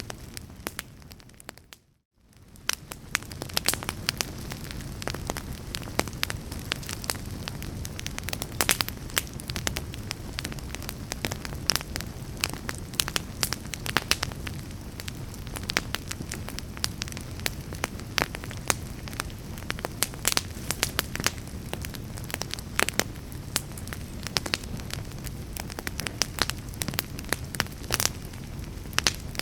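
Wood fire burning with a steady low rush and frequent sharp crackles and pops of the burning wood. About two seconds in, the sound fades out briefly and comes back.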